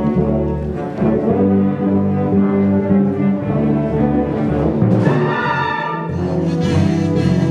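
Symphony orchestra playing a film-score arrangement, bowed strings with brass and timpani; a brighter swell of higher instruments comes in about five seconds in.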